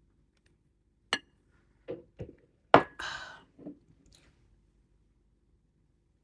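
A mug being set down on a table with tableware knocking: a sharp click, a few soft knocks, then one louder knock followed by a brief hiss.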